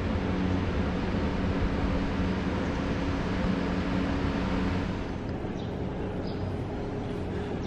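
A train standing at the platform, its equipment running with a steady low hum and rumble. The sound drops to a quieter background hum about five seconds in.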